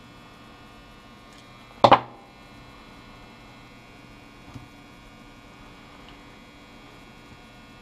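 Steady electrical mains hum, with one short, sharp clack about two seconds in and a faint tick a little past halfway.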